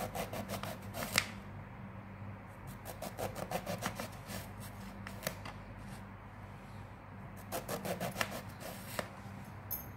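A small kitchen knife sawing through a brinjal (eggplant) on a cutting board, slicing it into rounds. The strokes come in three quick runs of rapid back-and-forth strokes a few seconds apart, over a steady low hum.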